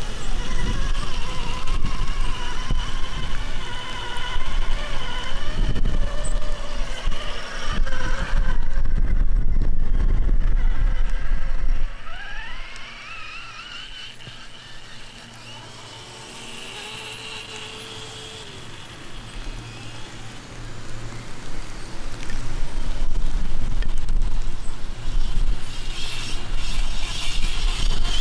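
Electric RC truck with a sensored brushless motor driving over grass clippings, its motor whine rising and falling with the throttle over a low rumble. It goes quieter for several seconds in the middle, where a whine climbs steadily in pitch, then grows loud again near the end.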